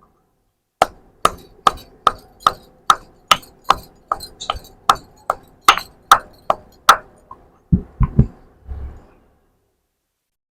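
Long pepper and black pepper being pounded with a pestle in a mortar: a steady run of about fifteen sharp strikes, a little over two a second, then a few duller, heavier thuds near the end.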